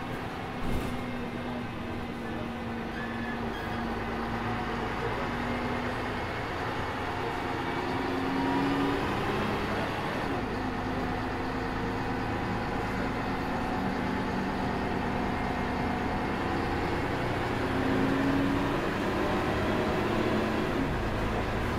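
Ikarus 280 articulated bus heard from inside while driving, its diesel engine climbing in pitch under the ZF Ecomat automatic gearbox. The note drops as the gearbox shifts up about ten seconds in, then climbs again until another upshift near the end. A short knock about a second in.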